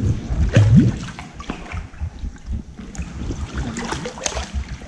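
Water splashing and trickling as a person climbs out of the cave river onto wet rock, with irregular knocks and a brief rising sound just under a second in.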